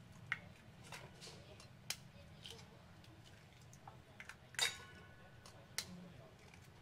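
Boiled balut duck eggs being cracked and peeled by hand: scattered sharp clicks and taps of eggshell against a metal bowl, with one louder metal clink that rings briefly a little past halfway. A low steady hum runs underneath.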